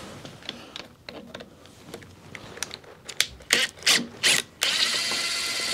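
A cordless driver and the handlebar control hardware of a Harley Evo Sportster make scattered clicks and a few sharp knocks. Near the end the driver's motor runs steadily for over a second, spinning out a switch-housing screw.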